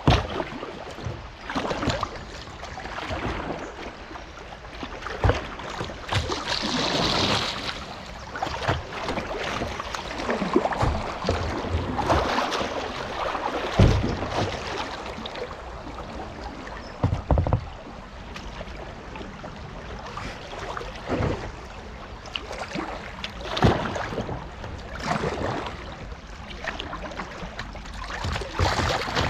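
Kayak on a shallow river riffle: water rushing and splashing around the hull in uneven bursts, with a few dull thumps, the loudest about halfway through.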